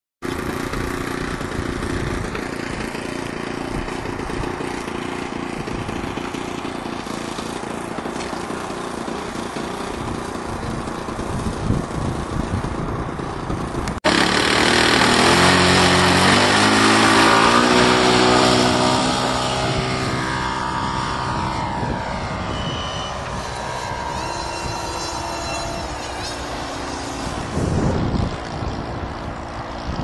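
A Seagull AT-6 Texan radio-controlled model airplane's engine runs steadily at low throttle. After an abrupt cut about halfway through it is louder and its pitch climbs as the throttle opens for takeoff, then it settles into a quieter, steadier run as the plane flies off.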